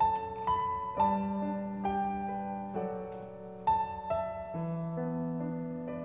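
Slow solo piano music: a melody of single struck notes, each fading, over longer held low notes.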